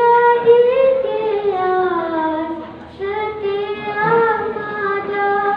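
A girl singing solo and unaccompanied into a microphone: a slow melody of long held notes that glide down in pitch, with a short break about three seconds in.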